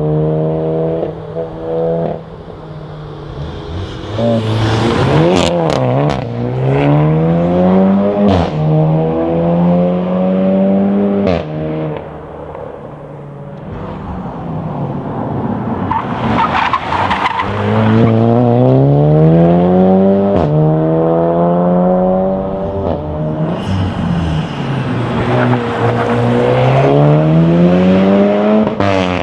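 Volkswagen Golf R Mk7's turbocharged 2.0-litre four-cylinder on an aftermarket performance exhaust, accelerating hard through the gears. The pitch climbs through each gear and drops at each upshift, with sharp cracks from the exhaust at several of the shifts.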